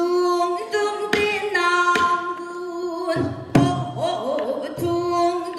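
A woman singing pansori through a microphone, holding long notes with a wide vibrato, with a few sharp strokes of the buk barrel drum.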